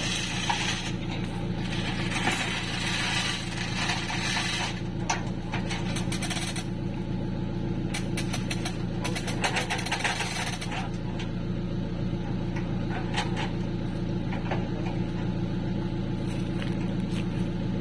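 Truck engine idling steadily, with a hiss and scattered clicks and knocks over the first half.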